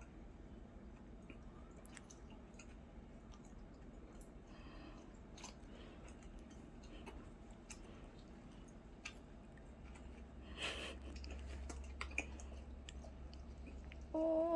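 Faint chewing of jelly candy: soft wet mouth sounds with scattered small clicks. A short voiced sound rising in pitch comes in right at the end.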